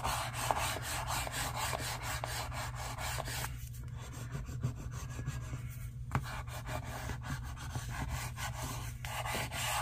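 A small hand tool rubbed back and forth over stickers on a paper journal page, pressing them down, in three spells broken by short pauses about three and a half and six seconds in. A steady low hum runs underneath.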